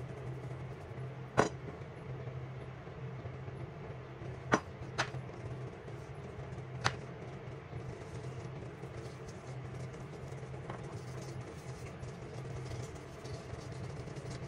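Hands seasoning raw pork chops on a wooden cutting board: four sharp clicks and taps in the first half, over a steady low background hum.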